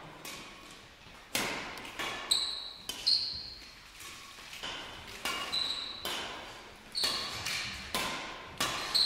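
Badminton rally: rackets strike the shuttlecock with sharp, echoing pops about once a second, traded back and forth across the court. Short high squeaks from sneakers on the court floor come between some of the hits.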